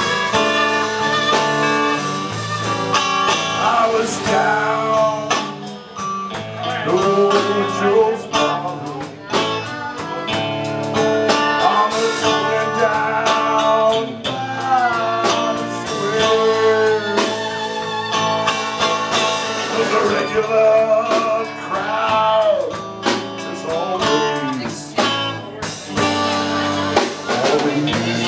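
Live band playing a sad song with saxophone, fiddle, electric guitar and drums.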